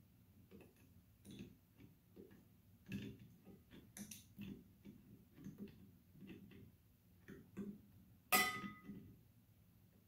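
A wrench tightening a nut on a metal air-horn mounting post: a run of faint, irregular metal clicks and ticks. One sharper metallic clink rings briefly about eight seconds in.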